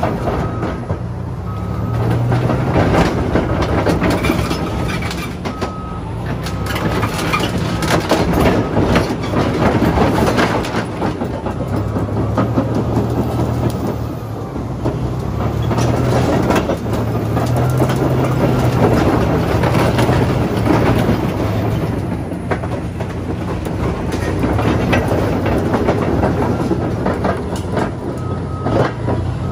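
Caterpillar D11 bulldozer's V12 diesel engine working hard, its note swelling and easing every few seconds. Dense crunching and cracking of the school bus's body is heard as the tracks and blade crush it. A few short high beeps come near the start and again near the end.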